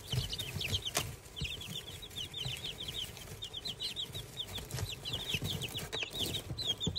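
Young chicks peeping nonstop in a brooder: many short, high, falling peeps from several birds overlapping.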